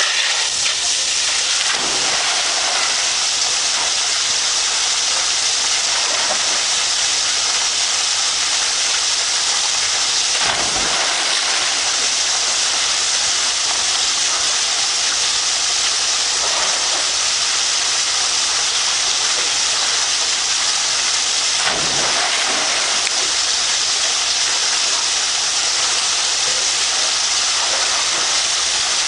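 Steady hiss of rushing water, with three faint thumps spread through it.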